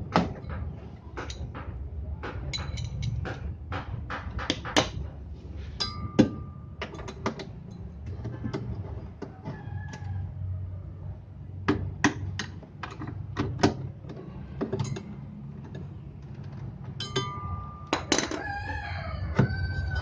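Sharp clicks and knocks of a wrench and hands on the metal motor bracket, pulleys and drive belt of a Daewoo washing machine, as the belt is taken off. A chicken calls a few times in the background, about six seconds in and again near the end.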